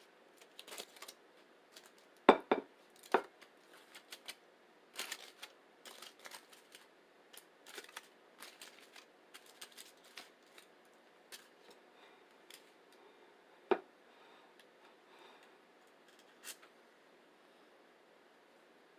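Close-miked eating sounds from a rice and bean burrito: an irregular run of short wet clicks and crackles from chewing and handling, with a sharper knock about two seconds in and another near fourteen seconds.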